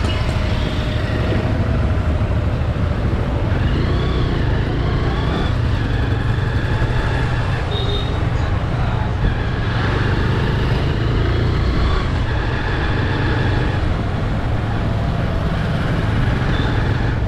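Road traffic: motor vehicle engines running steadily, a continuous low rumble of passing traffic.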